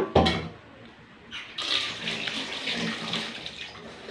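Wet, juicy chewing and slurping of honeydew melon close to the microphone, in irregular strokes for about two seconds. A thump sounds just after the start.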